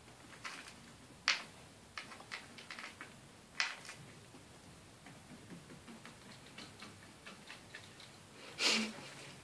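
Light clicks and clacks of the plastic cones and lids of a wooden food-puzzle toy as a pet rat noses and shifts them to get food pellets. There are two louder clacks, about a second in and at about three and a half seconds, then quick small ticking, and a short rustling knock near the end.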